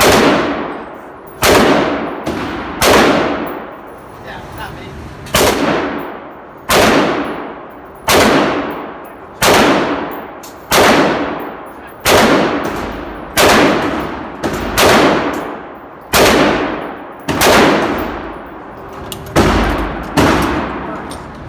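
Diamondback AR-15 rifle firing 5.56 rounds in slow, steady semi-automatic fire: about fifteen shots, roughly one every second and a half, each ringing out and fading over about a second.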